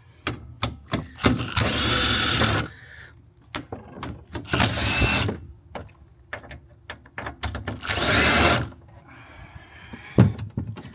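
Small impact driver with a T40 Torx bit backing out screws: it runs three times for about a second each, with short clicks and knocks between.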